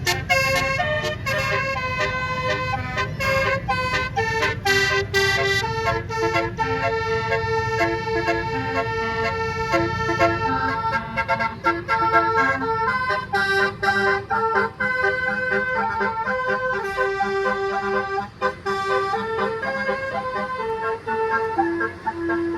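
Bus telolet horn, a multi-tone musical air horn, playing a long melody in stepped, held notes over the low rumble of engines and traffic.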